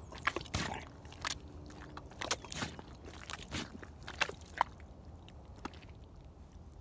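Rubber boots squelching in wet, waterlogged mud as a foot rocks and presses down into it: a run of wet clicks and squishes that thins out after about four and a half seconds.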